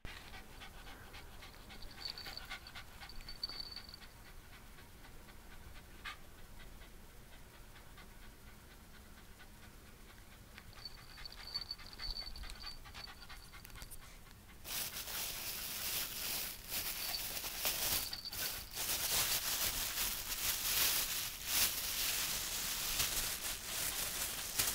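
Shiba Inu dog panting with its tongue out; about halfway through the panting gets much louder and hissier.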